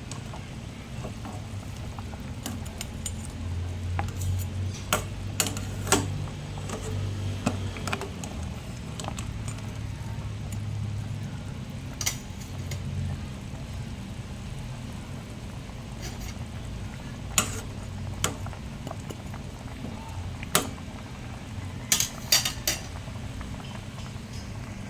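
Cooking-pot sounds: a metal utensil clinking and knocking against a pot in scattered sharp strikes, several in quick succession near the end, over a steady low hum.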